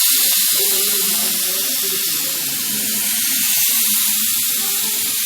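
Kebab skewers sizzling loudly and steadily on a hot grill, the meat just laid on the heated surface.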